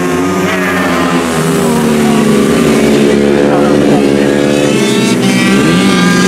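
Engines of two racing motorcycles running hard at high revs, close together, with their pitch climbing and dropping as the riders work the throttle and shift gears.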